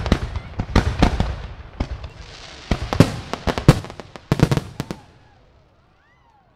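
Aerial fireworks shells bursting in a rapid barrage of sharp bangs, some in quick clusters, dying away about five seconds in.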